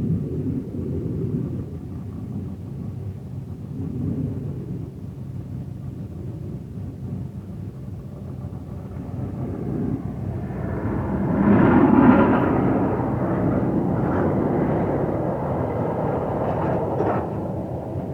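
Off-road vehicle engine growing louder about ten seconds in, loudest about two seconds later and carrying on, over a steady low rumble of wind.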